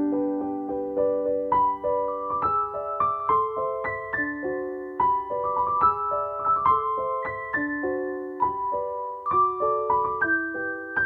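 Background piano music: a melody of separate notes, several a second, over held chords.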